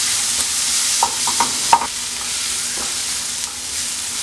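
Onion, spice and freshly added chopped tomato sizzling in oil in a non-stick frying pan while a wooden spatula stirs and scrapes it around the pan. There are a few sharper scrapes of the spatula between one and two seconds in.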